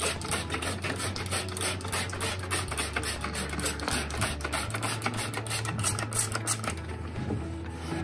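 Hand trigger spray bottle squirting cleaner in quick repeated pumps into an air-conditioner's fan, stopping about two-thirds of the way through. Background music with a low bass line plays underneath.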